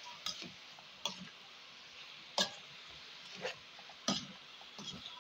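Metal spoon stirring chunks of meat and chopped onion in a stainless steel pot, with irregular clinks and scrapes of the spoon against the pot, the loudest about two and a half seconds in.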